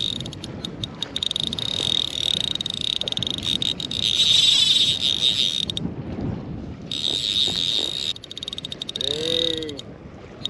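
Fly reel drag buzzing in a fast run of clicks as a hooked trout pulls line off the reel. It is loudest about four seconds in, breaks off briefly about six seconds in, and comes in shorter spurts near the end.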